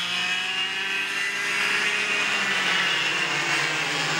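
Racing go-kart engine running at speed as the kart is driven round the track, its pitch rising and falling gently with the throttle.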